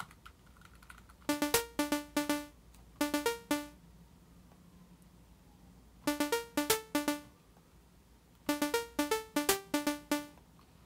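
Short, plucky synthesizer notes in quick staccato runs of a few notes, with gaps between the runs, as a looped melody plays back. The patch is a sawtooth or square wave on Ableton's Analog synth with a short release.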